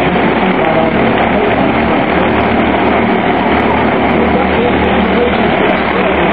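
Minicup race cars running around an oval track, a loud, steady engine and track noise with no pauses.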